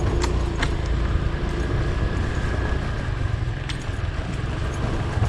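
A motor vehicle engine running steadily, with a dense low rumble and a faint steady whine.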